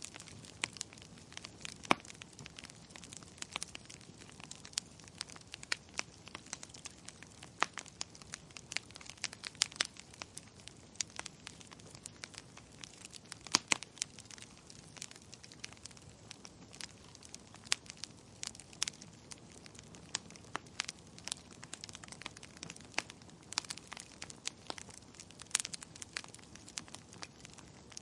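Burning logs crackling: irregular sharp pops and snaps of varying loudness, several a second, over a faint steady hiss.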